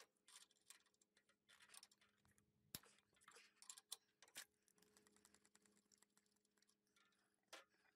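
Near silence with faint, scattered clicks and scratches from clear tape and a thin plastic chute being pressed onto a mower's steel frame by hand.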